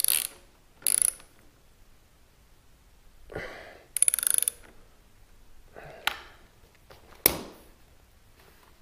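Hand socket ratchet clicking in short bursts while turning the muffler hanger bolt on a motorcycle exhaust, followed later by a few single sharp metal clinks.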